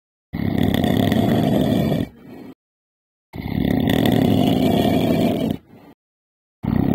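Loud rasping snores: two long ones, each about two seconds, a second apart, then a short one starting near the end.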